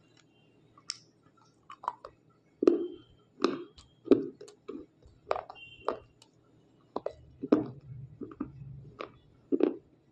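Biting and chewing pieces of white unshaped slate: about a dozen sharp crunches, roughly half a second to a second apart, starting a couple of seconds in.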